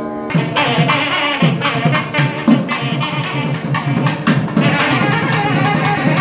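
Tamil temple procession music, the periya melam. A held nadaswaram note breaks off about a third of a second in. Then the thavil barrel drum comes in with fast, hard, irregular strokes over a steady low tone.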